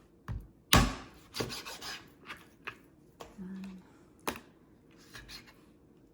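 Kitchen knife cutting raw chicken thighs in half on a cutting board: a few sharp knocks of the blade on the board, the loudest about a second in, with slicing and rubbing sounds between.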